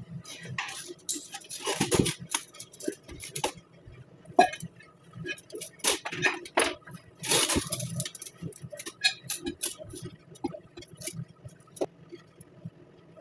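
Metal hand tools and parts clinking and scraping irregularly as a boot installer tool is worked on a truck's new lower ball joint. There are many scattered clinks and ticks, with longer scraping stretches about a second in and again around seven seconds in.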